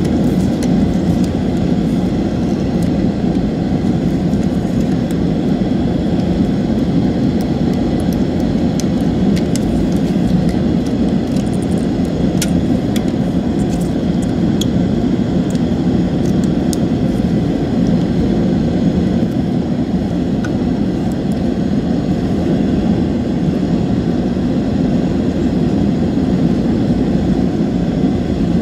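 A steady, loud, low rushing noise with no pitch changes, its source not shown. Faint light clicks and taps of the mouse's plastic parts being handled come through it here and there, most of them in the middle.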